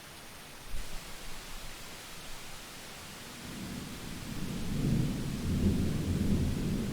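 Thunderstorm: steady rain hiss with low rolling thunder that builds up about halfway through and keeps rumbling.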